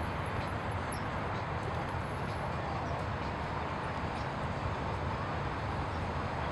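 Steady rumble of city traffic, an even background noise with no distinct events.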